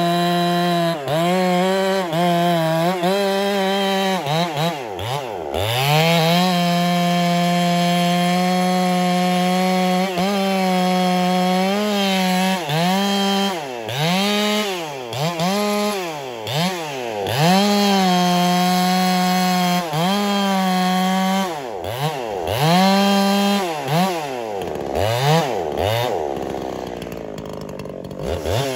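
Husqvarna 372 two-stroke chainsaw revved up and down again and again, with a few stretches held steady at high revs, dropping back toward idle near the end before revving once more.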